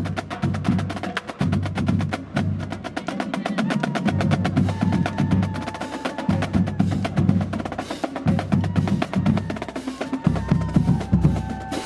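Marching band drumline playing a cadence: fast snare and rim clicks over pulsing bass drum hits, with a held pitched note sounding briefly about five seconds in and again near the end.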